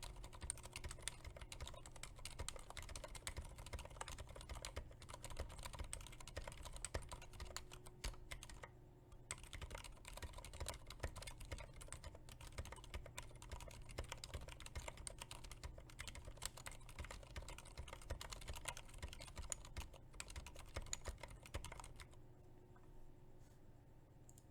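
Quiet, fast typing on a Keychron K8 mechanical keyboard fitted with Aliaz silent switches: a dense, steady stream of keystrokes. There is a brief pause about nine seconds in, and the typing stops about two seconds before the end.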